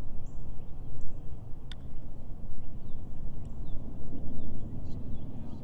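A single sharp click about two seconds in, a putter striking a golf ball, over a steady low outdoor rumble, with a few faint bird chirps.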